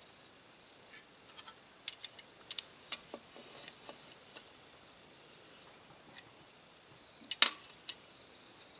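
Light metallic clicks and clinks as a thin bright-metal grille trim piece is handled and set down on a wooden board: a cluster of small clicks about two to four seconds in, then one sharper, louder click about seven and a half seconds in, followed by a lighter one.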